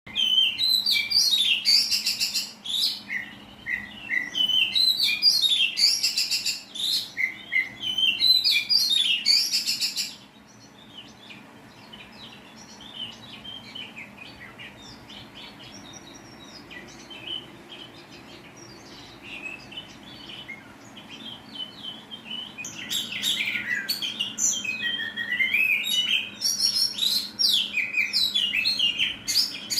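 Oriental magpie-robin (kacer) singing in loud, rapid-fire harsh bursts of phrases, the hobbyists' 'tembakan kasar' style. The song turns softer and sparser about ten seconds in, then comes back loud for the last several seconds.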